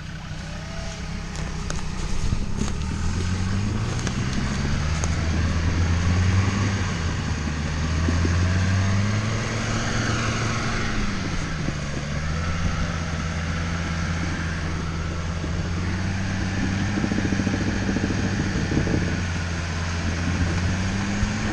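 Land Rover Defender Td5's five-cylinder turbodiesel engine working under load as the truck crawls up a steep off-road slope. Its revs climb a couple of seconds in, hold high through the middle, dip briefly and then run fairly steady.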